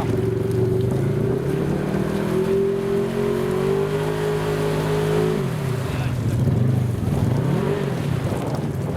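Off-road vehicle engine held under load with revs slowly climbing for about five seconds, then dropping off suddenly and being revved up and down a few times.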